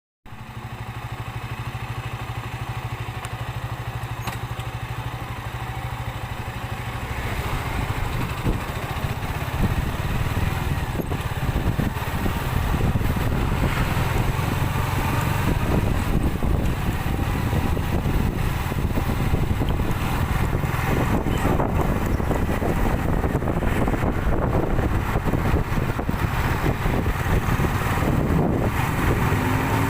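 City road traffic: motorcycle and car engines running, with steady road noise, growing louder about eight seconds in.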